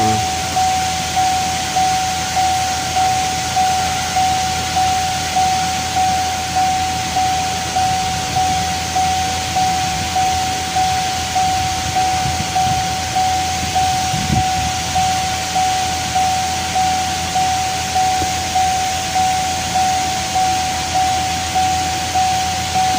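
Car's warning chime dinging over and over, one steady mid-pitched ding about once a second, each ding fading before the next.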